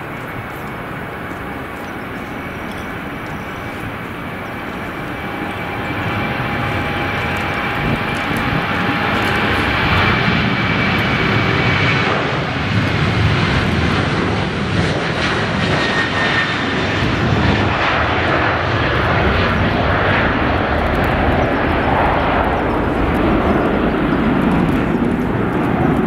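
Boeing 737-800's twin CFM56-7B turbofan engines at takeoff thrust: a steady whining fan tone that swells into loud, rushing jet noise as the jet accelerates past on its takeoff roll, dropping slightly in pitch as it goes by, then carrying on as it lifts off and climbs away.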